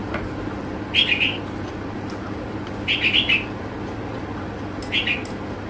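A bird chirping in three short bursts about two seconds apart, over a steady low hum.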